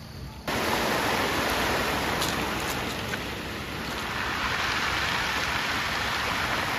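Small waves washing onto a pebble shore: a steady rushing wash that comes in suddenly about half a second in.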